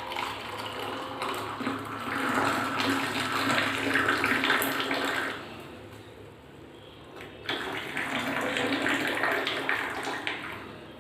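Freshly made coffee being poured, splashing into a cup in two spells: about five seconds, a short pause, then about three seconds more.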